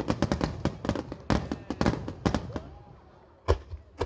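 Aerial firework shells bursting in a rapid barrage of bangs and crackles. The barrage thins out past the middle, then one loud single bang comes about three and a half seconds in and another near the end.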